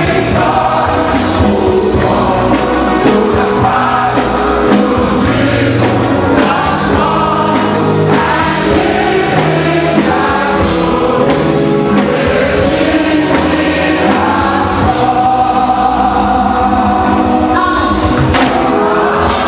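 Gospel choir singing to full band accompaniment, with a steady beat.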